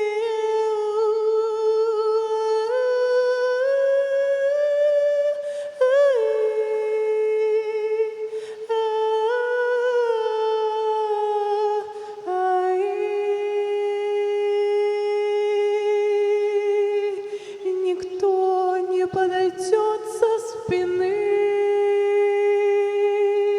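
A single voice humming long, wordless held notes unaccompanied, the pitch stepping slowly up and down, with a quick warble about six seconds in and a few brief breaks near the end.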